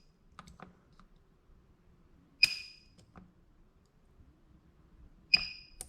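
Spot welding pen on a PCB battery spot welder firing twice, about three seconds apart, into thick 0.15 mm nickel strip: each shot a sharp snap with a brief high tone, with faint ticks of the pen needles between. The pulses fail to weld the thick nickel.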